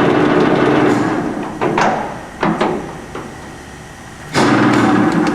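Rotary table drive of a 1970 Blanchard 20K-36 vertical spindle surface grinder, its 36-inch magnetic chuck turning with a steady hum. About a second in the hum dies away during a speed change, with several sharp metallic clunks. It starts up again near the end at the next, slower table speed.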